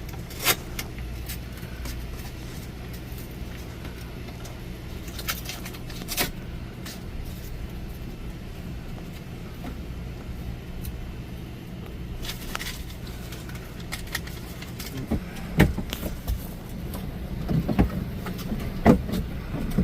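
Scattered clicks, knocks and rattles of parts and tools being handled, over a steady low mechanical hum. The knocks come more often in the last few seconds.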